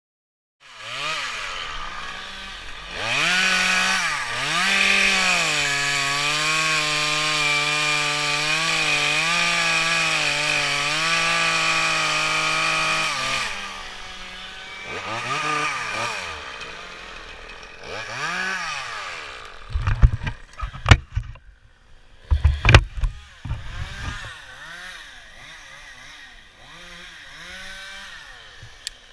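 Two-stroke chainsaw revving up and held at high speed for about eight seconds, then dropping back to idle with a couple of short revs. A cluster of sharp knocks comes about three quarters of the way through.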